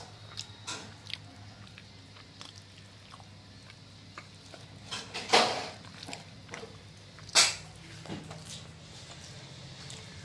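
Eating by hand: quiet chewing and mouth clicks, with two short, louder noises about five and seven seconds in, over a steady low hum of a pedestal fan.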